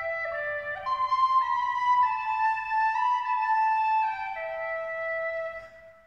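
Instrumental music of slow, overlapping held notes that move in steps from chord to chord, fading away near the end.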